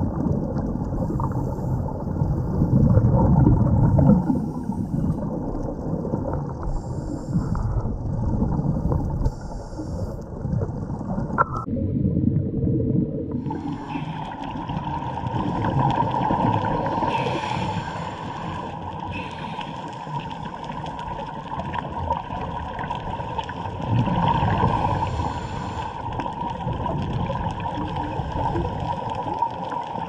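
Scuba breathing heard underwater: divers' regulators releasing exhaled bubbles that gurgle and rumble in swells. About twelve seconds in the sound drops out briefly, and a steadier underwater hum with a faint held whine follows.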